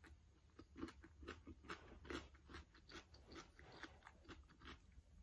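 Quiet close-up chewing: a person eating, with irregular soft crunches and wet mouth clicks, several a second.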